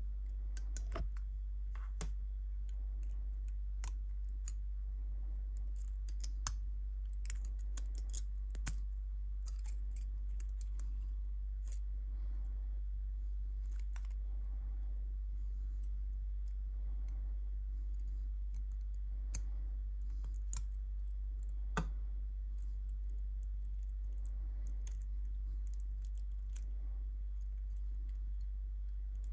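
Sharp, irregular clicks and ticks of steel tweezers picking at the small metal and plastic parts of a miniature variable capacitor being taken apart. The clicks come thickest in the first dozen seconds, with a louder one about twenty-two seconds in, over a steady low hum.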